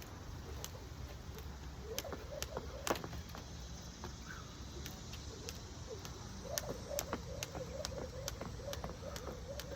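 Jump rope slapping the floor in a steady rhythm, about two slaps a second, over a low steady hum.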